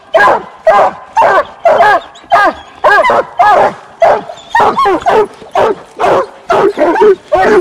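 Coonhounds barking treed, reared up against the tree trunk, a steady chop of loud barks about two a second, each rising and falling in pitch: the sign they have a raccoon up the tree.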